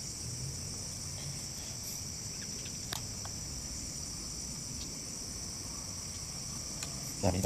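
Insects chirring steadily at a high pitch, with a faint tick about three seconds in.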